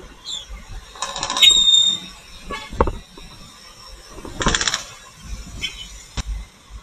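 Street traffic and engine noise heard from a motor scooter riding in city traffic, with two short loud hissing bursts, about one and four and a half seconds in, and a brief high squeal with the first.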